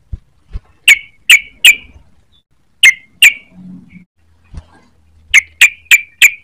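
Young yellow-vented bulbul (trucukan) calling close to the microphone: short, sharp, loud chirps in quick groups of three, then two, then four. A few soft low thumps between them.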